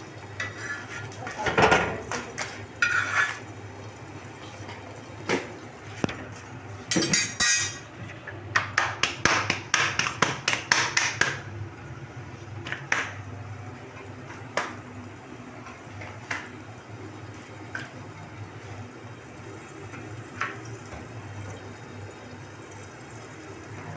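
Kitchen clatter of cookware and utensils during roti making: scattered sharp knocks and clinks, with a quick run of them about nine to eleven seconds in, then only a few clicks over a steady low hum.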